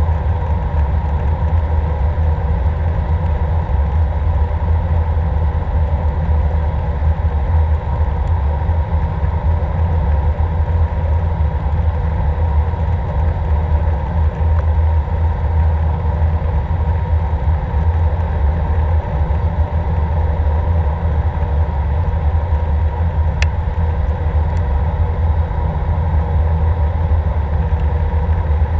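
Cabin noise inside an Airbus A319 airliner on approach: a steady low rumble of the jet engines and airflow past the fuselage, with a faint steady hum above it.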